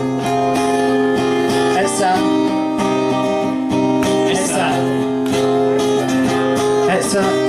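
Acoustic guitar strummed in a steady rhythm, chords ringing between the strokes, as the intro to a song.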